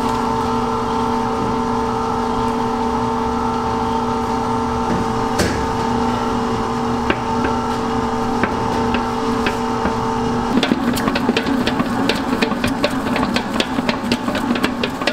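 Commercial stand mixer running with a dough hook in a steel bowl, its motor giving a steady hum while it mixes bagel dough. About ten seconds in the hum drops away and rapid, irregular knocking and slapping takes over as the dough is thrown around the bowl.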